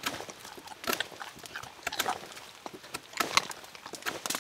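A dull, broken knife blade scraping a stick of fatwood into shavings, in short, irregular scratchy strokes.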